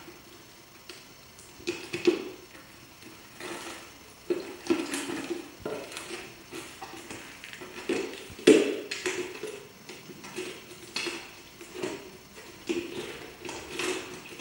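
Alaskan Malamute puppy chewing and licking at an empty plastic peanut butter jar: irregular crackles, clicks and knocks of the plastic jar, loudest twice, a couple of seconds in and just past halfway.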